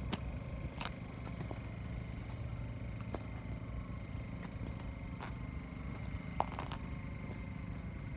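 A steady low outdoor rumble with a few faint, irregular clicks and ticks scattered through it, one sharper click about six and a half seconds in.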